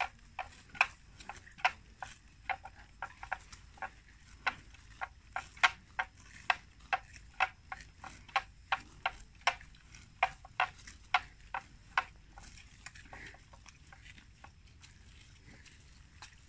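Water buffalo cropping grass: a string of sharp tearing snaps, about two to three a second, that thins out after about twelve seconds.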